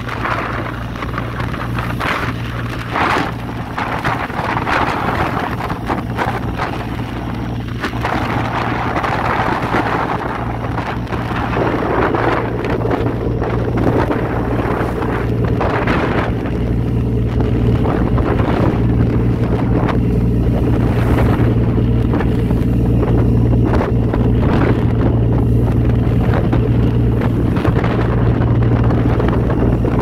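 Fishing boat's engine running steadily under way, with wind buffeting the microphone and water rushing along the hull, and scattered light knocks. The engine hum grows stronger about a third of the way in.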